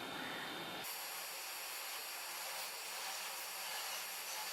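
Faint steady hiss with a light hum underneath, and no distinct events.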